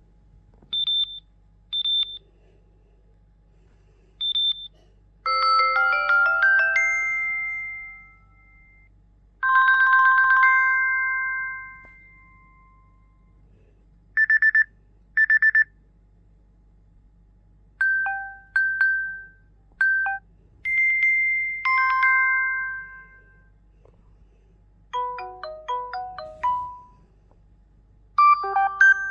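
Samsung Galaxy Watch 4 ringtones played one after another: about eight short electronic tones with pauses between. They run from high single beeps and quick chime arpeggios to two-note chimes and little melodic phrases.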